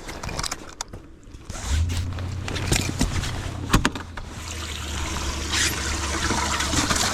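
Bass boat livewell pump humming steadily from about a second and a half in, with water trickling and splashing. A few sharp knocks and clicks of handling come early and around the middle.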